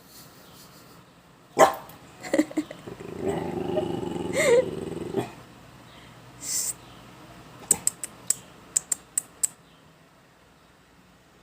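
A dog snoring in its sleep: a sharp snort, then a low grumbling snore lasting about two seconds, a breathy snuffle, and a quick run of about seven small clicks.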